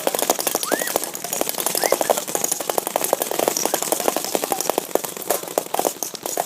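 Several airsoft guns firing fully automatic at once, a dense rapid clatter of shots mixed with BBs striking a stack of cans. The firing thins out near the end.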